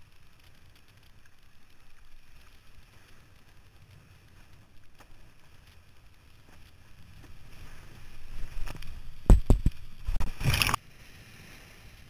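Wind and water rushing over the camera microphone on a windsurfer's rig, growing louder about eight seconds in. Then three sharp knocks close together as the board slaps over chop, and a loud burst of spray that cuts off suddenly near the end.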